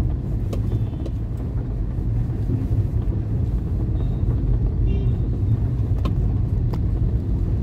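Steady low rumble of a vehicle moving through city road traffic, with a few faint short tones about five seconds in and a couple of light clicks shortly after.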